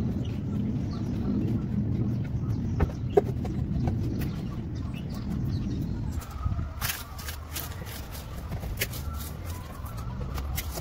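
Hands handling a clear plastic container of kitchen scraps: a few clicks as compost is scraped in with a bamboo skewer, then, from about six seconds in, a run of sharp clicks and crackles as vegetable peel is torn and dropped into the container. A low rumble runs under the first half.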